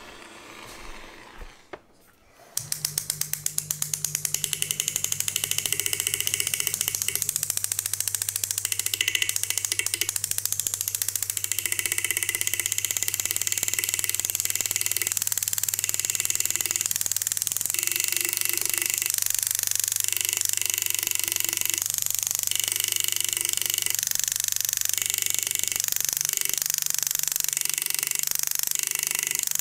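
Engraving handpiece hammering very rapidly and evenly with a steady hum as its graver cuts the 18ct gold ring band; it starts about two seconds in.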